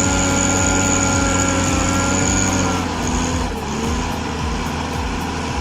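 Heavy machinery engine running steadily with a high whine over it. About three seconds in, the sound drops a little and changes to a lower, wavering engine note.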